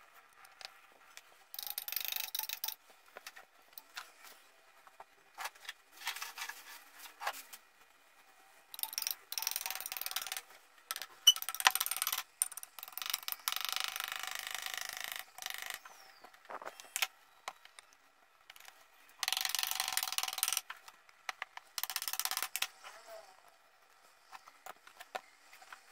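Metal-on-metal scraping and clicking from the lid of a copper jewelry box being worked open and shut by hand, in about six separate scrapes with short clicks between them.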